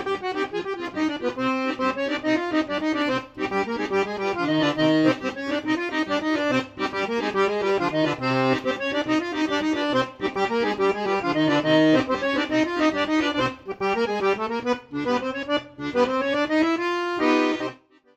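Background music: an accordion playing a melody, which stops shortly before the end.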